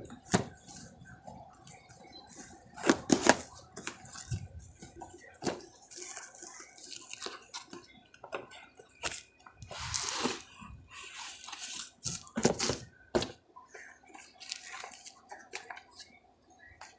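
Handling noises from unboxing a wireless access point: irregular rustles and clicks of packaging and plastic, with louder crinkly bursts about three seconds in, around ten seconds and again about twelve seconds in.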